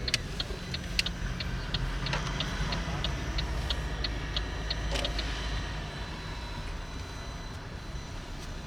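Car turn-signal indicator ticking, about three clicks a second, stopping about five seconds in, over the low rumble of the car driving.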